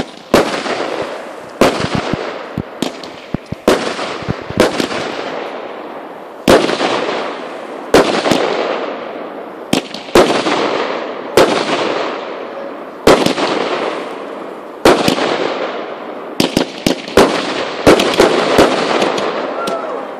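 Fireworks launching and bursting one after another, a sharp bang about every one to two seconds, each followed by a crackling hiss that fades away.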